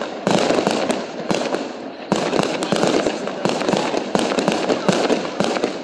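Fireworks going off: a dense, continuous run of sharp pops and crackles, with louder bursts about a quarter of a second in and again about two seconds in.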